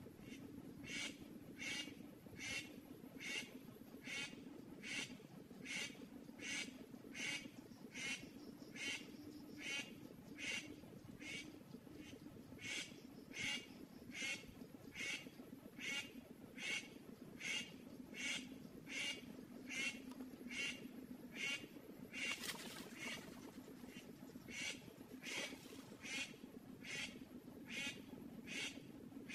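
A bird call repeated at a very even pace, about three calls every two seconds, over a steady low hum. A short burst of noise breaks in about three-quarters of the way through.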